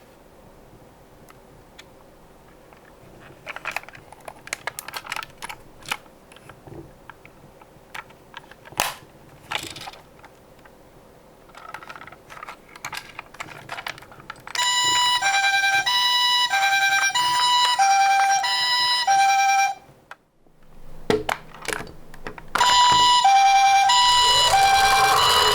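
Scattered light clicks and knocks of die-cast toy cars being handled. Then a Japanese-style two-tone ambulance siren alternating between two pitches, pausing about five seconds later and starting again a couple of seconds on with a rolling rattle under it.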